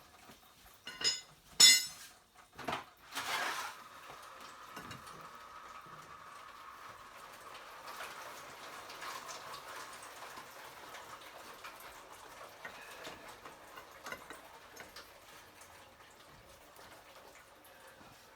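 A few light metal clinks, then engine coolant trickling and dripping out of a Nissan VG30DE V6 as its cylinder head is worked loose. The trickle sounds like liquid filling a container and slowly tapers off.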